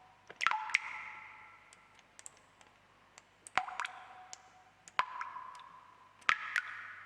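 Water drops falling into water, each a sharp plink followed by a short ringing tone that fades away. The drops come at irregular times, several in quick pairs.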